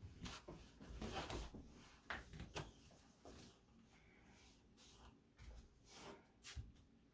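Soft rustling and light knocks of a cloth sheet being spread and tucked onto a floor mattress, with a few light steps near the end.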